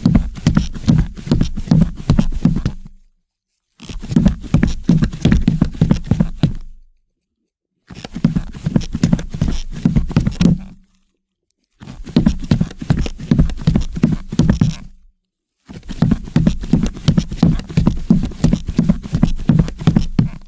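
Footsteps of boots walking on a parquet wooden floor, a steady succession of heel-and-sole knocks. They come in runs of about three seconds, broken by short gaps of complete silence.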